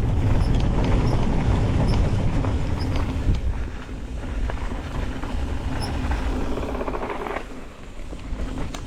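Mountain bike descending a dirt downhill trail: heavy wind rumble on the microphone, tyre and trail noise, and scattered clicks and rattles from the bike. It eases off briefly about four seconds in and again near the end.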